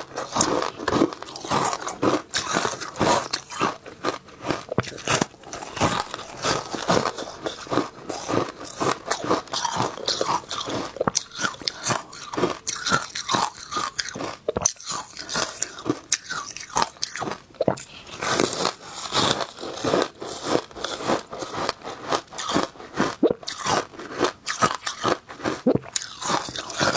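Biting and chewing packed shaved ice topped with passion fruit pulp, heard close up: a continuous run of rapid, crisp crunches.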